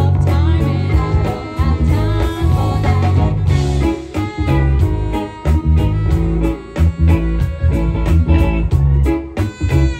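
A live band playing, with a heavy low end and a steady beat.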